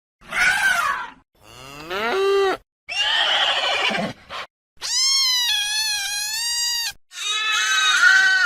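A run of five separate animal calls, each about one to two seconds long with short gaps between. Some glide upward in pitch, and the longest, a little past halfway, is a high wavering call of about two seconds.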